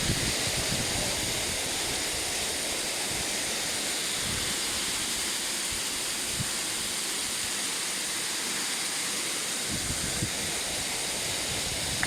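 Steady rushing roar of a waterfall over 100 metres high, water falling continuously, with a few low buffets of wind on the microphone.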